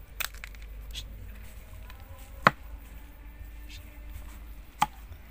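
Kitchen knife chopping on a cutting board: four separate strikes a second or two apart, the third the loudest.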